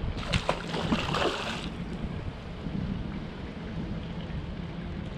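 Wind buffeting the microphone over water lapping against a dock, with a brief louder rush of noise and a few clicks in the first couple of seconds.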